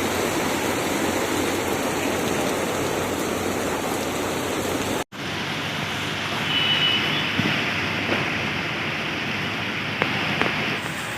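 Heavy rain pouring with a steady rushing hiss. The audio cuts out briefly a little over five seconds in, and the rain carries on afterwards with a short high tone and a few faint knocks.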